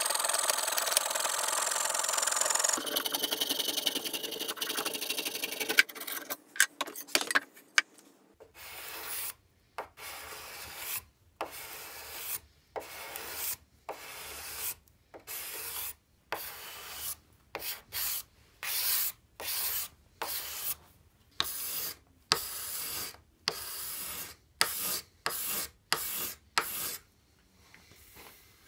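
A coping saw cutting through an oak board in quick, continuous strokes for the first few seconds. After a few sharp clicks, a steel card scraper shaves the edge of a curved oak stretcher in regular separate strokes, roughly one a second, each a short dry scrape with a brief pause between.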